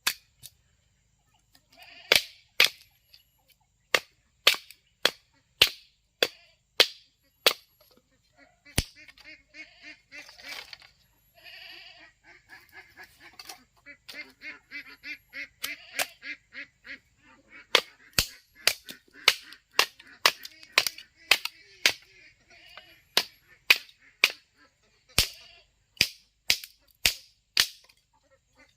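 Hammer blows in runs of about two a second, sharp and loud, at the start and again near the end. Ducks quack in a stretch of rapid calls in the middle.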